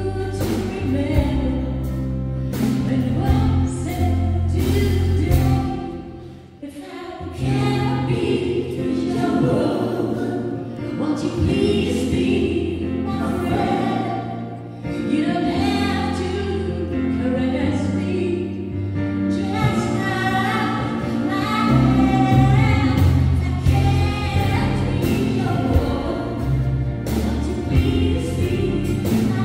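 Live pop ballad: a woman sings the lead with other voices singing harmony, over a strummed acoustic guitar and deep bass notes. The music thins out briefly about six seconds in, then comes back full.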